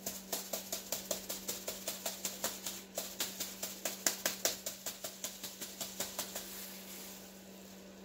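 Rapid, even tapping or clicking, about five strokes a second, each with a short pitched knock, stopping about six and a half seconds in. A steady low hum runs underneath.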